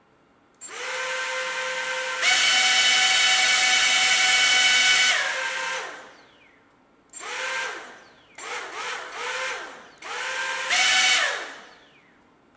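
Electric ducted propellers on an RC car, four counter-rotating props in 3D-printed ducts, spinning up to a steady high whine. The whine steps up in pitch about two seconds in, holds, then winds down. Three shorter throttle bursts follow, each whining up and falling away. The propellers are being run to test how hard they push the car against a surface.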